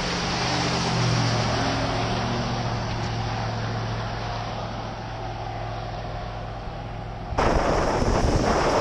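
Dodge 4500 Cummins turbo-diesel straight-six running at a steady drone while driving. About seven seconds in it cuts abruptly to a louder rushing, rattling noise, with wind buffeting the microphone.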